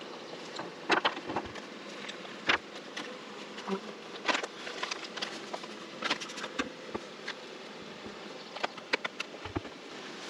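Honey bees buzzing around opened hives, a steady hum, with irregular sharp clicks and knocks scattered through it.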